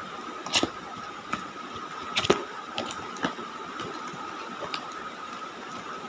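Cardboard and plastic packaging of a nachos box being handled and opened: a few short, sharp clicks and crinkles, the loudest about two seconds in, over a faint steady high tone.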